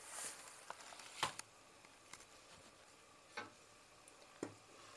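A few faint clicks and knocks from kitchen utensils being handled at the stove, the sharpest about a second in, with a brief rustle at the start.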